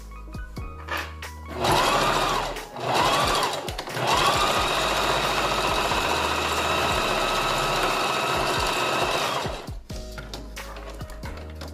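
Electric sewing machine stitching hair wefts onto a wig cap: two short bursts, the motor speeding up and slowing down in each, then a longer steady run of about five seconds that stops suddenly.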